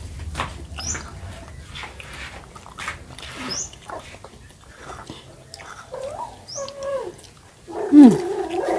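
Short smacking clicks of people eating with their hands, then from about six seconds in a pet animal's drawn-out cries that rise and fall in pitch. The loudest cry comes near the end and slides down in pitch.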